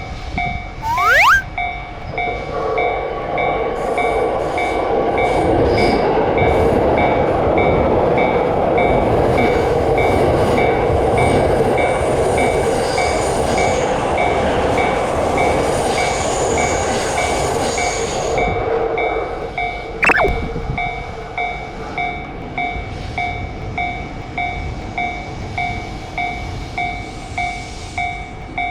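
Japanese railroad crossing warning bell dinging steadily about once a second while an electric train passes through for most of the first twenty seconds. There is a brief rising tone near the start and a short falling tone about twenty seconds in.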